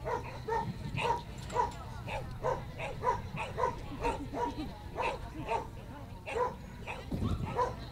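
Dog barking repeatedly, about two to three barks a second with a couple of short pauses.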